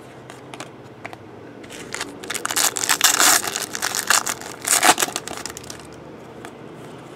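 Foil trading-card pack wrapper torn open and crinkled by hand: a dense crackle from about two seconds in, loudest in the middle, with one sharp crackle near five seconds before it dies away.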